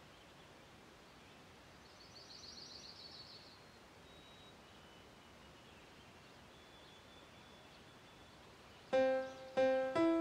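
A faint hiss of background ambience, with a bird's short trilling call about two seconds in and a few thin, high whistled bird notes after it. Near the end a piano comes in loudly, striking single notes in a slow, even pulse.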